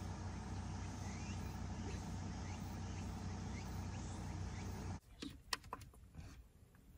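Steady outdoor car-park ambience: a low, even hum with faint short rising chirps about once a second. About five seconds in it cuts to quiet indoor sound, with a few sharp clicks and knocks as a small clip-on desk fan is handled.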